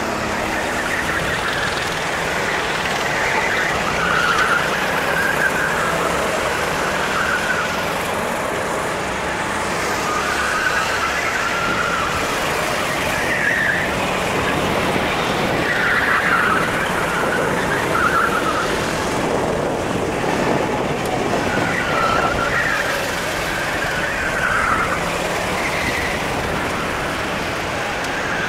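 Sodi RT8 rental kart running at racing speed, its engine noise mixed with steady wind rush, with short tyre squeals several times through the corners.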